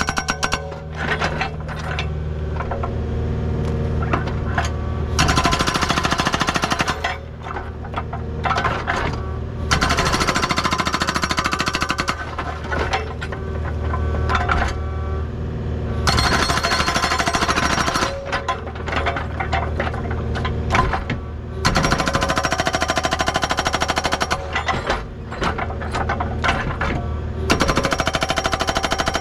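Agrotk hydraulic breaker hammer on a Kubota U55 mini excavator pounding rock in repeated bursts of rapid, even blows, stopping and starting every few seconds. The excavator's engine runs steadily underneath.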